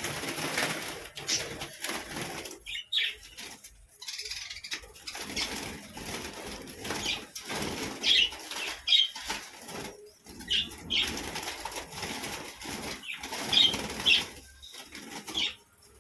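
Budgerigars flapping their wings in flurry after flurry as they fly around a large aviary cage.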